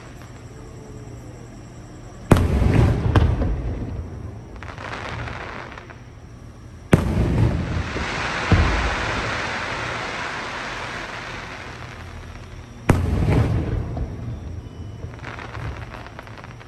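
Aerial fireworks shells bursting: three loud bangs about four to six seconds apart and a smaller bang between the second and third. Each bang is followed by a noisy tail that fades over a few seconds.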